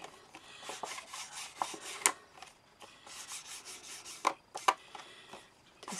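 Ink pad rubbed along the edges and corners of a paper card in repeated short scraping strokes, with a few sharper clicks about two seconds in and twice past four seconds.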